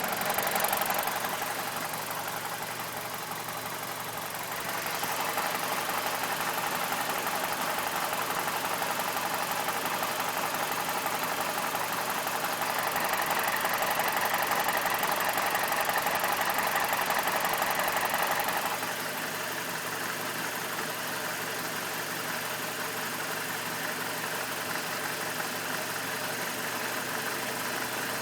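BMW E46's N42 four-cylinder engine idling roughly with the mass airflow sensor unplugged, heard up close; the rough idle has not cleared with the MAF disconnected. The sound dips for a few seconds near the start and is louder and brighter for several seconds in the middle.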